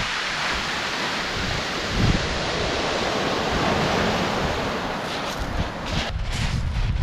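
Waves breaking and washing over a shingle beach, with wind buffeting the microphone. A few short, sharp noises come in near the end.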